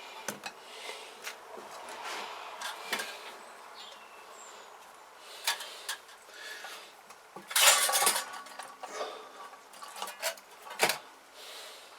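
Metal tools and engine parts clinking and knocking as they are handled on a workbench, with a louder clatter of metal about seven and a half seconds in.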